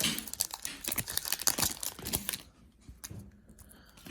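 A trading-card pack wrapper being torn open and crinkled: dense crackling for about two and a half seconds, then only a few faint clicks.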